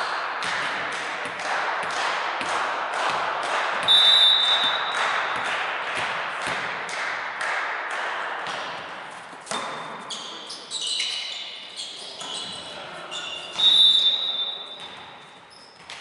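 Rhythmic clapping, about two to three claps a second, over shouting voices echoing in a sports hall for the first nine seconds. A referee's whistle blows briefly about four seconds in and again, longer, near the end. Sneakers squeak on the court during the rally in between.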